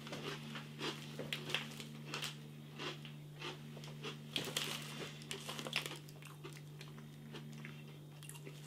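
A person crunching and chewing oven-baked cheddar snack sticks: many small crisp crunches for about six seconds, then quieter chewing, over a faint steady low hum.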